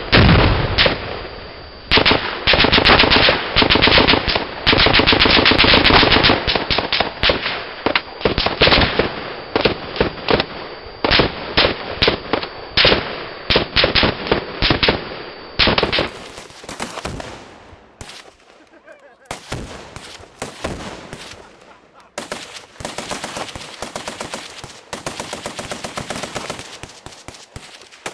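Machine guns firing long bursts of fully automatic fire, the shots running together in rapid strings. About halfway through the sound changes to quieter, more spread-out bursts and single shots.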